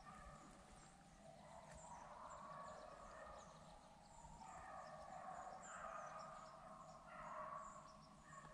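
Beagles baying in the distance as they run a rabbit: a faint, overlapping chorus of hound voices that swells and fades, louder in the second half.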